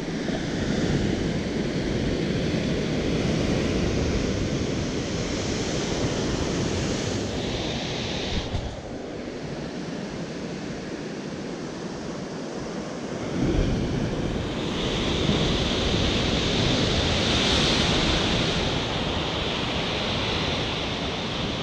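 Ocean surf breaking and washing over the rocks at the foot of a sea cliff, a steady rushing that swells and eases with the breakers, louder early on and again past the middle. Wind buffets the microphone underneath.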